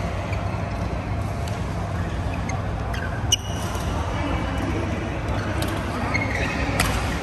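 Badminton rackets hitting shuttlecocks: scattered sharp knocks, the loudest about three seconds in, with a short squeak beside it, over the steady low hum of a large sports hall.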